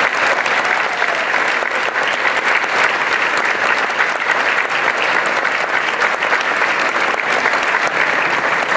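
Audience applauding, many hands clapping at a steady level throughout.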